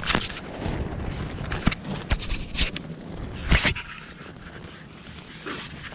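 Wind buffeting the tent fabric and the microphone, with rustling and a few sharp knocks, the loudest about three and a half seconds in; it eases after about four seconds.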